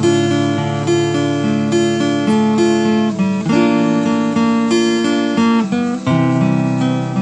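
Acoustic guitar played solo with no singing, strummed and picked chords changing about every second.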